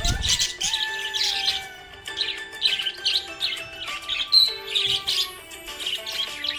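Small pet parrots chirping in quick high clusters, about two a second, over background music with held tones. A short low thump comes right at the start.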